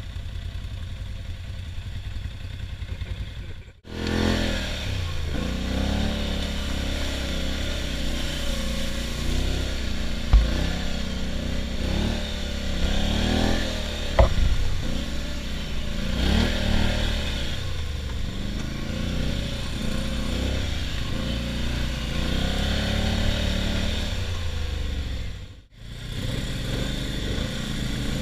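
ATV engine revving and easing off again and again while riding, with a couple of sharp knocks partway through. The sound drops out briefly about four seconds in and again near the end.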